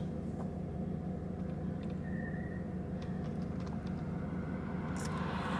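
Steady low rumble of a car's engine and road noise inside the cabin, with a brief faint beep about two seconds in.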